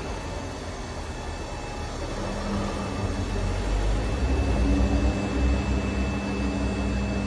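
A steady low rumble, with a low hum joining about two seconds in and the rumble growing a little louder around the middle.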